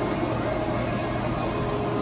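Steady hum and hiss of a grocery store's background machinery, its refrigerated display cases and air handling running, with a few faint steady tones in it.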